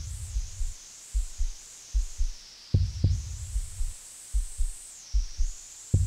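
Slow electronic track played on analog synthesizers. Deep thuds repeat, a strong pair about every three seconds with softer single pulses between. Over them runs a high hiss whose pitch sweeps down and back up.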